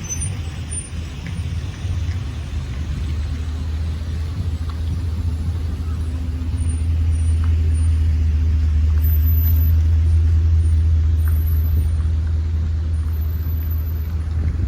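Low, steady rumble of a large vehicle's engine, swelling in the middle and easing off near the end.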